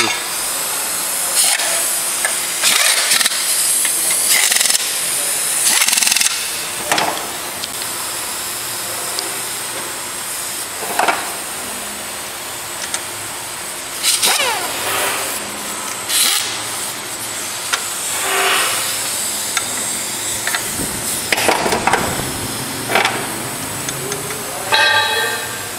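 Motorcycle assembly-line din: a steady hiss with about a dozen short, irregular bursts of louder hissing and clatter.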